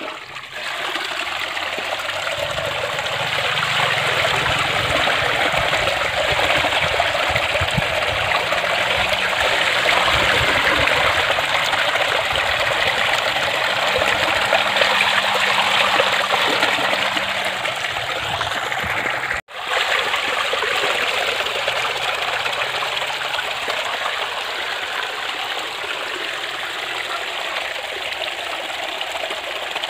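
Steady stream of water pouring from an outdoor pipe onto the ground and over fish pieces as they are rinsed in a steel pot. The sound cuts out for an instant about two-thirds of the way in, then runs on a little softer.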